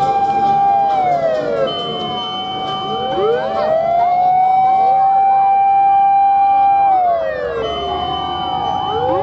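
Several fire engine sirens wailing at once and out of step. One holds a steady wail and glides down about a second in and again near seven seconds, while others rise and fall around it.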